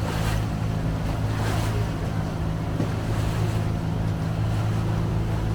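Tour boat's engine running steadily while under way, a low hum, with water rushing along the hull and wind on the microphone.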